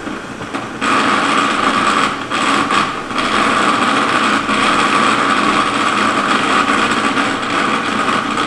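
Electric food processor running steadily, its blade chopping basil pesto while olive oil is poured in through the feed tube. The motor noise gets louder about a second in.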